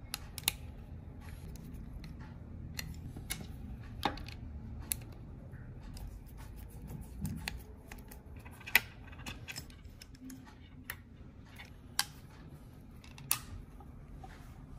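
Small, sharp metallic clicks and taps at irregular intervals from a metal eyeglass frame being handled by hand, its temple arm and hinge knocking as they are fitted together. A low steady hum runs underneath.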